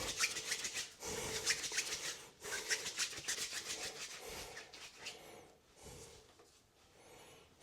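Hands rolling and kneading a lump of plumber's putty between the palms to warm and soften it: soft rubbing with light clicks, busiest in the first four seconds or so, then dying away.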